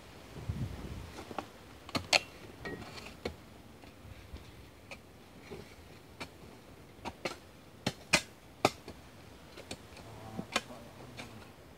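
Irregular sharp clicks and knocks of a small hand tool digging and chipping into packed clay soil, with the strongest strikes about two seconds in and twice around eight seconds in.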